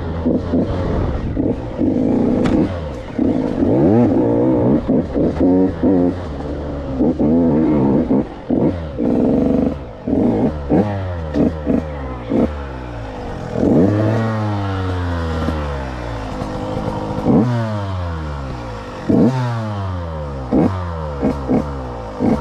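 KTM 85's two-stroke single-cylinder engine revving hard as the dirt bike is ridden, the pitch climbing with each throttle burst and falling away as the throttle closes. Over the last ten seconds or so it comes in short, separate blips about every second or two.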